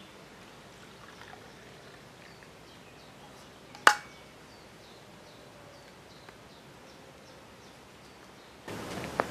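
A drink poured from a stainless-steel vacuum flask into its cup, with one sharp metal clink about four seconds in. Near the end a louder steady hiss sets in.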